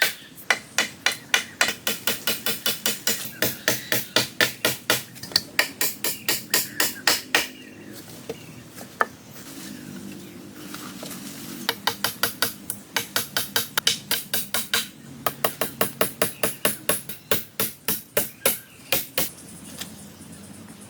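Quick, steady blows of a hand tool striking wood, about three a second, in two runs with a pause of about four seconds between them.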